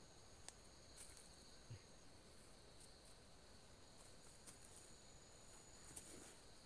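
Faint, steady high-pitched insect trilling, with a few soft clicks and rustles from a snared bird being handled.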